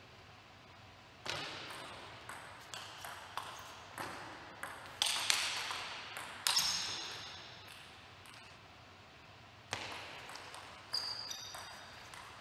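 Table tennis ball being hit back and forth in rallies, sharp echoing clicks off the rackets and the table. One rally runs from about a second in, there is a pause, and another starts near the end.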